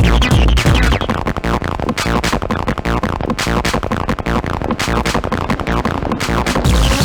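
Electronic dance music played loud. The pounding kick drum and bass drop out about a second in, leaving quick, repeated falling synth sweeps, and the kick comes back in near the end.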